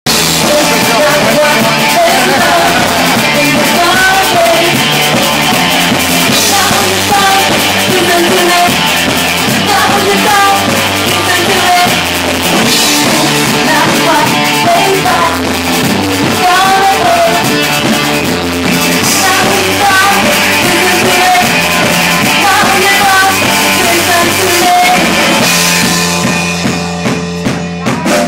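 Live rock band playing, with lead vocals over electric guitar, bass and drum kit. Near the end the sound thins for a moment to a held low note.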